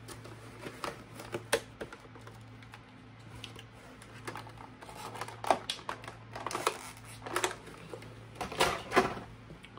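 Small plastic toy accessories and their packaging being handled: scattered sharp clicks and short crinkly rustles, coming more often in the second half.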